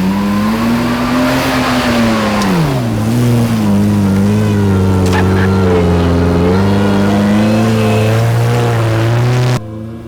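Four-wheel drive's engine revving hard under load as it is driven up a steep off-road climb. The pitch rises over the first second and a half, dips sharply about three seconds in, then holds high and steady until it cuts off abruptly near the end.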